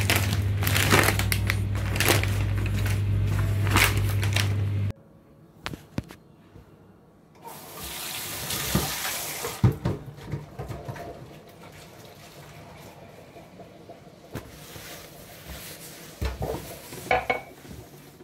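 Dishwasher starting its cycle: a steady pump hum with water sloshing, which cuts off suddenly about five seconds in. Later there is a short rush of water noise and a few light knocks.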